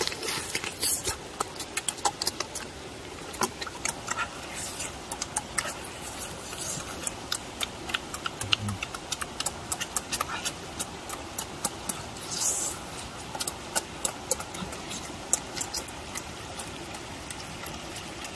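Wet chewing and lip-smacking of people eating braised pork leg by hand: an irregular run of sharp smacks and clicks, over the steady rush of a shallow stream.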